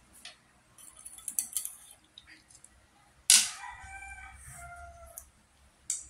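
A rooster crows once, a loud pitched call starting a little past the middle and lasting about two seconds. Before it comes a quick run of small clicks and clinks as cooked sea shells are handled on a plate, with one more click near the end.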